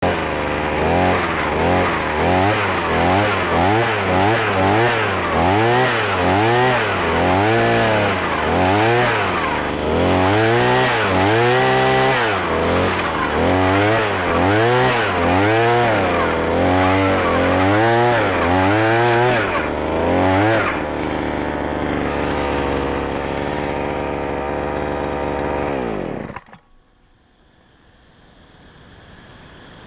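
Handheld Oshima earth auger's two-stroke engine drilling into soil, its revs rising and falling about once a second as the auger bites. About 21 s in it settles to a steady speed, then cuts off abruptly.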